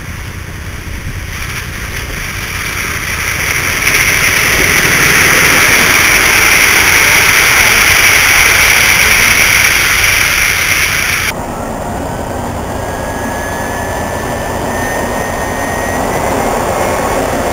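Loud steady hiss of steam from a 5-inch gauge live-steam model locomotive, building over a few seconds, then stopping abruptly about eleven seconds in. A lower, rougher running noise with a faint, slowly rising tone follows.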